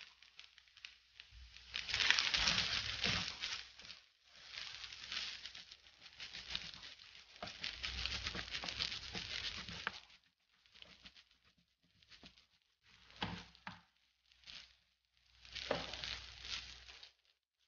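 Wooden spoon stirring and scraping rice, minced beef and egg around a nonstick frying pan, a scratchy rustling with fine clicks. Long stretches of stirring for the first ten seconds, then shorter strokes with pauses between them.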